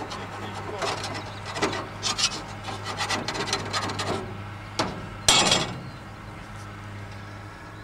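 Gloved hands scraping, rubbing and knocking against the metal parts of a forage harvester while clearing packed grass: a run of short scrapes and clicks, one louder scrape about five seconds in, then quieter handling.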